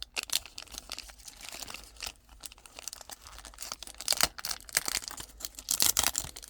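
Cellophane wrapper of a baseball card cello pack being crinkled and torn open by hand, a dense crackling with louder bursts about four seconds in and near the end.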